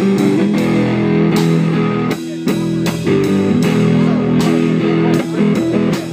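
Electric guitar playing an instrumental blues passage with bass, held chords struck in a steady rhythm, with no singing.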